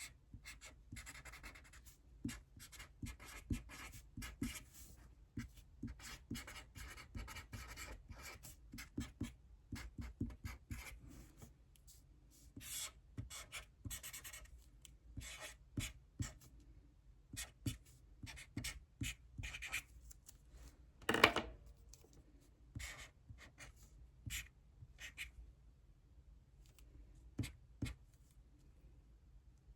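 Handwriting on paper: runs of short scratching strokes with brief pauses, as fraction problems are worked out by hand. A single sharper knock, the loudest sound, about two-thirds of the way through.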